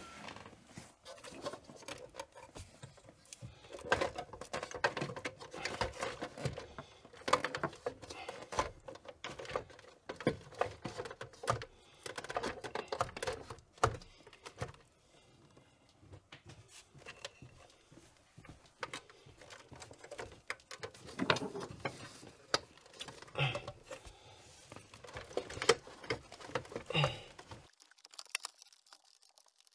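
Irregular clicks, taps and knocks of hands at work refitting the massage chair's main circuit board, plugging in connectors and handling plastic and metal parts. The sound cuts off suddenly near the end.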